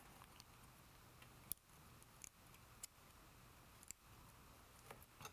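Near silence broken by a handful of faint, sharp metallic clicks: a small hex key and socket head screw being handled and turned as the screw is fitted.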